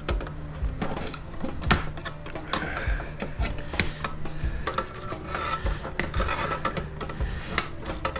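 Hand tools working on a metal electronics chassis, making irregular clicks, knocks and rattles while wire is taken off its power supply board.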